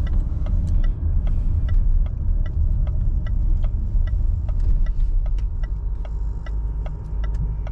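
Cabin noise of a Range Rover L405 driving slowly in restricted-performance mode: a steady low rumble of engine and road, with the turn indicator ticking evenly about three times a second.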